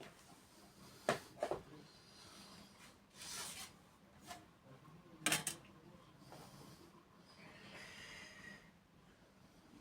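Faint hand-work noises on small parts: a few light clicks and knocks, the loudest about five seconds in, with short scraping and rubbing sounds between them.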